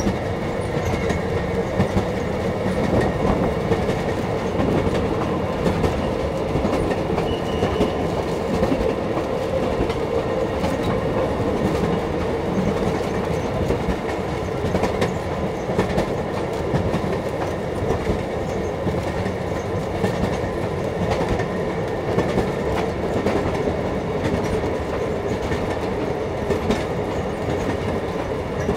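Steady rumble of a tourist train's open-sided passenger car rolling along the track, heard from on board, with the wheels clicking now and then over the rail joints.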